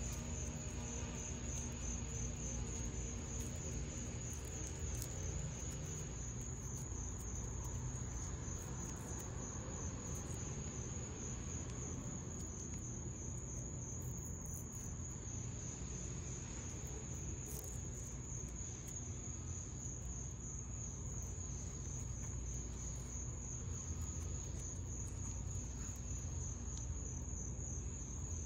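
Steady high-pitched insect trill, pulsing evenly a few times a second, typical of crickets, over a low rumbling background.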